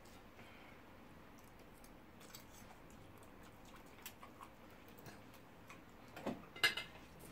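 Faint scattered clicks of forks against plates while two people eat spaghetti, with a short louder eating noise a little over six seconds in.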